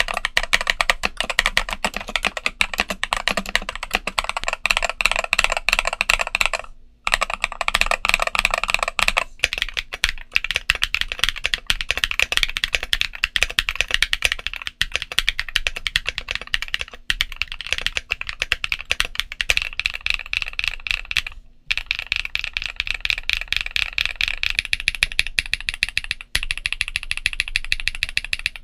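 Fast, continuous typing on a mechanical keyboard fitted with MMD Princess linear switches, a dense run of keystroke clacks that stops briefly twice.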